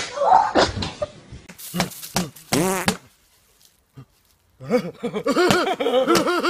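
A girl screams and yells in fright. After a short break, a rhythmic tune with a repeating wavering melody starts.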